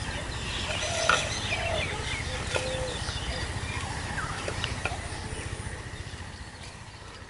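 Birds chirping and calling over a steady low rumble; the sound fades out near the end.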